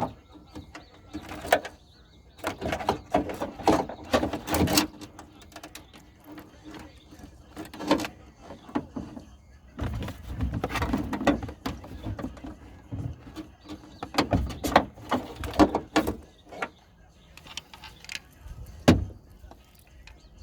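Irregular clicks, knocks and rattles of hands and tools working on a car's tail light assembly, in short uneven clusters.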